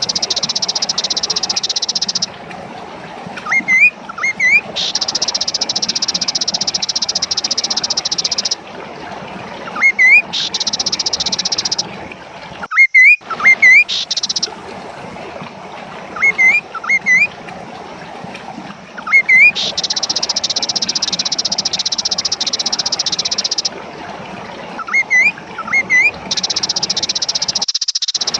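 Kaso-kaso bird calling: short, loud, rising notes in pairs or threes, repeated every few seconds. A steady, high-pitched buzz runs behind the calls and starts and stops abruptly in stretches of a few seconds.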